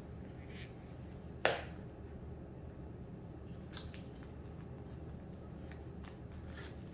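Small paper or card packaging being handled by hand, with one sharp click about a second and a half in and a few fainter clicks and rustles later.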